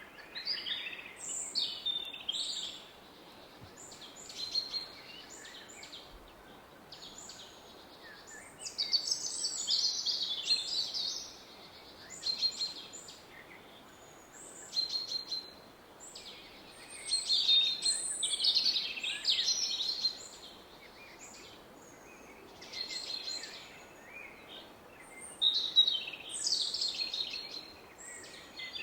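Songbirds singing, with phrases of chirps and trills coming in bursts every few seconds, over the faint steady rush of a distant river.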